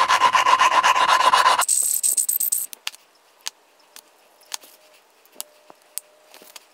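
Engine valve being hand-lapped into its seat in the Robin EH-29C cylinder head with valve grinding compound, the lapping stick spun back and forth between the palms: a fast gritty rasping for about the first second and a half. Then a brief hiss and scattered light clicks and taps as the lapping tool is set down and the valve is lifted out.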